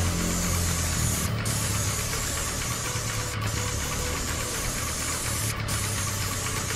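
High-pressure spray hissing steadily from a roof-coating spray wand, over the steady hum of the spray rig's engine or pump. The hiss drops out briefly three times, about two seconds apart.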